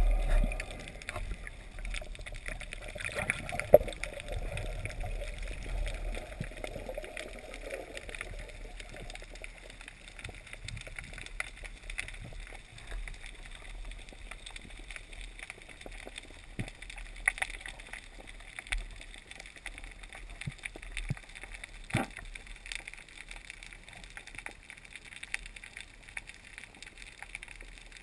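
Underwater water noise with gurgling in the first several seconds, settling into a quieter steady hiss with a few sharp clicks scattered through.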